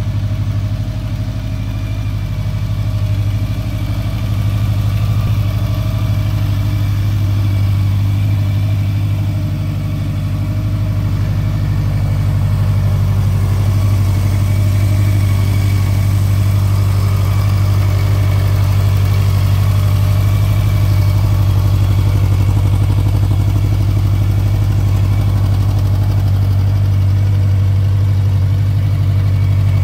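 Honda CB1100's air-cooled inline-four engine idling steadily through its twin chrome silencers.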